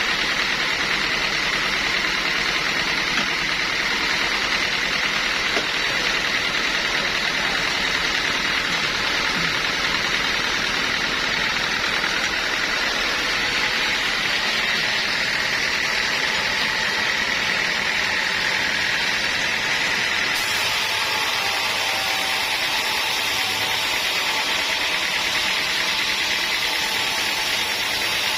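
Sawmill machinery running steadily with a high, even whine over a wash of mechanical noise; about two-thirds of the way through the sound shifts a little, turning hissier and losing some of its low rumble.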